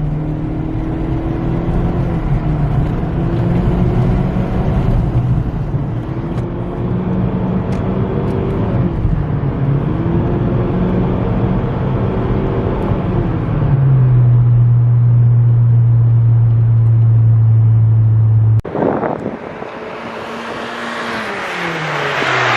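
Turbocharged Honda Civic engine under a full-throttle pull, its pitch climbing and dropping back at each upshift, then holding a steady drone for several seconds. Near the end the throttle lifts and the engine sound cuts off abruptly, with a brief noisy rush, then the revs fall away. The car is fitted with a blow-off-valve block-off plate.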